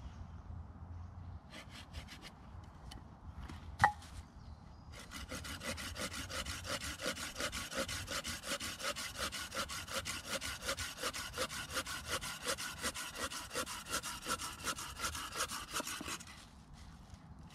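Hand saw cutting through a thick stick of wood: a few strokes and a single sharp knock, then a long run of quick, even back-and-forth strokes that stops near the end.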